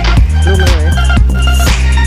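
Electronic background music with a heavy, sustained bass and a steady beat, over a wavering synth melody.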